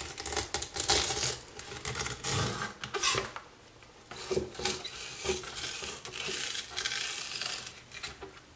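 Fillet knife cutting and scraping through a ladyfish on a bamboo cutting board: irregular strokes of the blade, with short knocks against the board and brief pauses between them.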